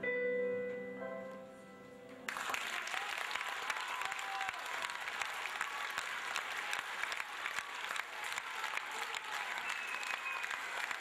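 Grand piano's last notes ringing out and dying away. About two seconds in, an audience breaks into applause, which carries on steadily.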